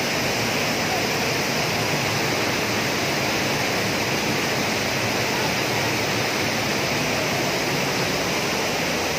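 Steady rush of a waterfall and its stream cascading over boulders.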